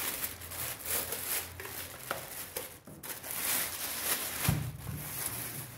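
Clear plastic dust bag crinkling and rustling as it is pulled off a 12-inch subwoofer, with a dull thump about four and a half seconds in.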